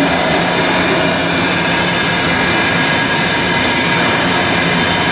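Okamoto Grind-X PRG6DXNC CNC rotary surface grinder running under power: a steady, even mechanical noise with a constant low hum.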